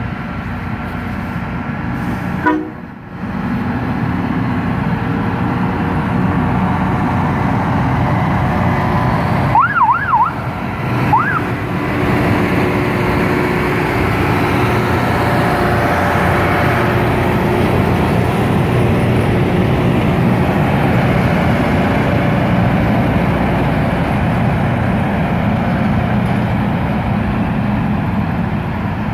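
Loram rail grinder train passing close, its diesel engines and wheels giving a loud, steady rumble. About ten seconds in, a short siren-like whoop sounds: three quick rising-and-falling sweeps, then one more.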